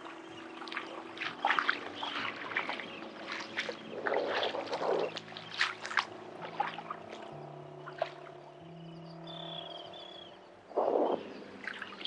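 Soft background music of long held notes over water splashing and trickling around rocks at the shoreline, with irregular crackly splashes; the loudest come about four seconds in and near the end.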